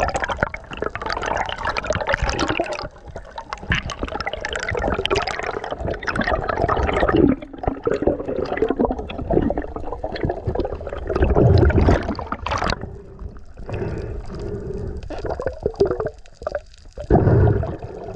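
Water gurgling and sloshing in uneven swells, the splashing and bubbling picked up during a spearfishing dive.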